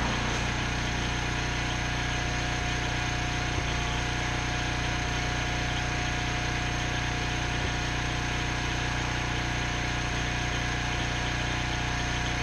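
Engine of a rig-mounted, engine-driven welding machine idling steadily at an even, unchanging speed.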